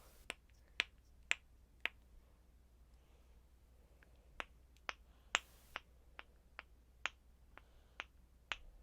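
Snapper fidget pen clicking repeatedly: four sharp clicks about half a second apart, a pause of about two seconds, then a run of clicks about two a second.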